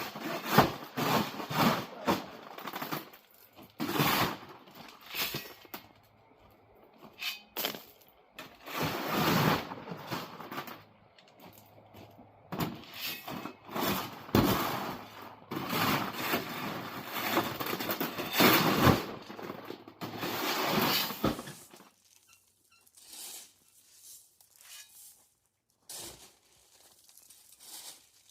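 Shovelling crushed-stone ballast: repeated scraping and rattling of stone, one scoop every second or two. The scooping stops a little over three-quarters of the way through, leaving only a few faint clicks.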